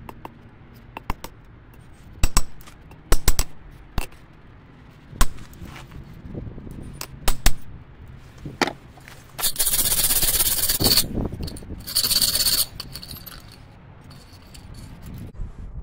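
A forging hammer striking a flint striker blank of old file steel on an anvil, about ten sharp ringing blows at an irregular pace. Then a wire brush scrubs scale off the steel on the anvil face in two loud scraping passes, about ten and twelve seconds in.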